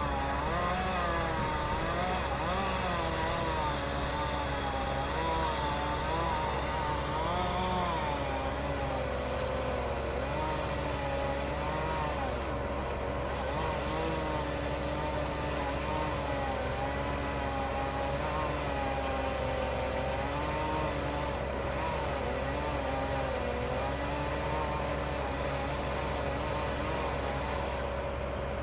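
Chainsaw running without a break while cutting a tree, its engine pitch wavering up and down as the chain bogs into the wood and picks up again, over a steady hum.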